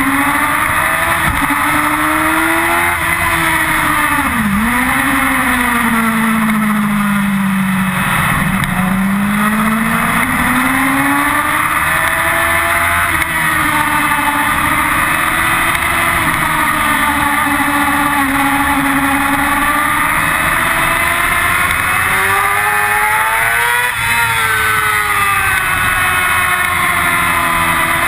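Yamaha R6's inline-four engine at high revs on track, its pitch climbing under throttle and dropping sharply on downshifts about four and eight seconds in and again near the end, over steady wind rush.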